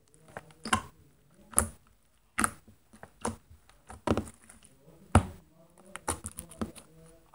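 Fingertips poking and patting slime on a hard tabletop: irregular sharp, sticky taps and squishes, about eight to ten of them, the loudest about five seconds in.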